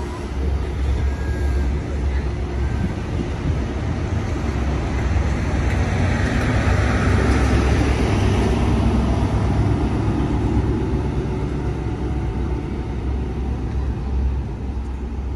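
A GWR Class 43 HST running through a station: steady low rumble of wheels on rail and diesel power, swelling as the rear power car passes about halfway through, then easing off as the train draws away.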